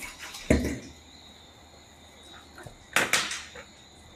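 Two brief handling noises during a cooking demonstration: a dull knock about half a second in, then a short, sharper clatter about three seconds in, over a faint steady high chirring.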